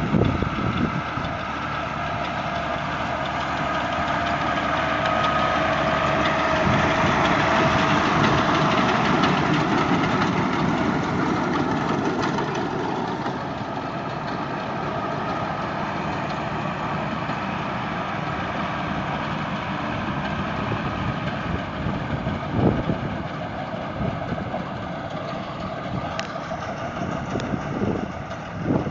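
International 886 tractor's diesel engine running steadily while baling hay with a Vermeer baler, with a faint whine that is strongest in the first half and louder for a while a few seconds in.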